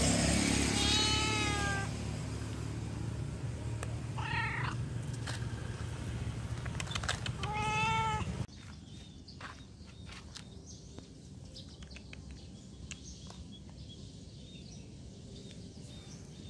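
A cat meowing three times, each meow a short call under a second long, over a low steady hum. About halfway through, the sound cuts off abruptly to a quieter background with a few faint clicks.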